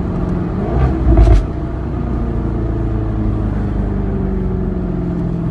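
2010 Jaguar XKR's supercharged 5.0-litre V8 with an XKR-S exhaust and custom tune: a short loud blip with a burst of exhaust pops and crackles about a second in, then running at a steady idle.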